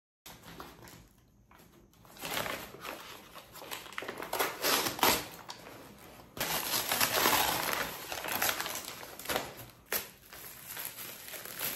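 Product packaging being handled and unwrapped: irregular crinkling and rustling with small clicks and knocks, coming in uneven spells that are loudest in the middle.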